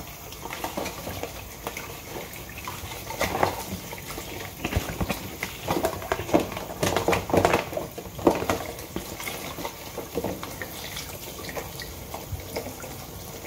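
Tap water running into a stainless steel sink while plastic food containers are scrubbed with a sponge and rinsed, with knocks and clatter as the containers are handled, busiest in the middle stretch.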